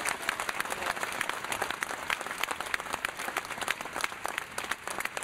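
Crowd applauding: many people clapping in quick, dense, irregular claps.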